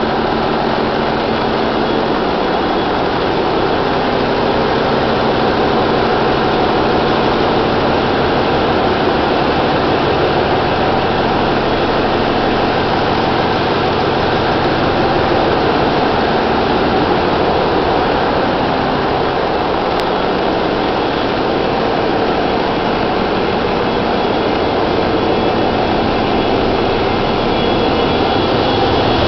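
Large marine diesel engine running in a ship's engine room: a loud, steady, unbroken din of machinery with a low hum beneath it.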